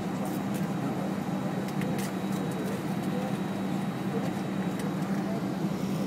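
Steady low hum inside an airliner's cabin while the plane taxis, with faint voices murmuring under it.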